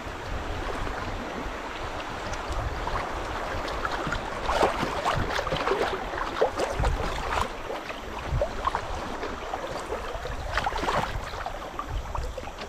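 River water rushing and gurgling along a kayak's hull as it drifts through a shallow riffle, with scattered small splashes and a low rumble underneath.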